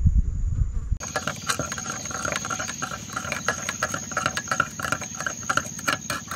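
A low rumble for about the first second, then an abrupt change to an insect chorus: a steady high-pitched drone with rapid pulsing chirps and scattered short clicks.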